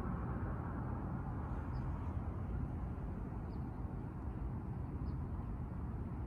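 Steady low outdoor rumble with no clear pitch, and faint short high chirps repeating about every second and a half.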